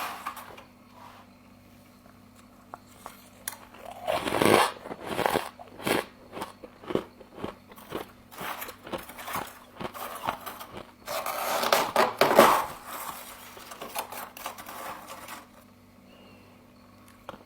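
Humidifier frost being bitten and chewed close to the mouth: after a few quiet seconds comes a long run of crisp crunches and crackles, loudest twice, which stops shortly before the end. A faint steady low hum lies underneath.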